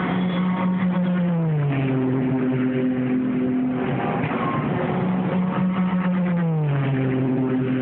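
Le Mans prototype race cars passing at speed, two in turn. Each engine's steady howl drops sharply in pitch as the car goes by, about a second and a half in and again about six and a half seconds in.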